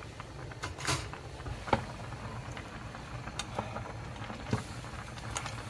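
A pan of ramen boiling, a steady low rumble with scattered pops, and a few sharp clicks as the noodles are stirred with chopsticks and a wooden ladle; the sharpest click comes a little under two seconds in.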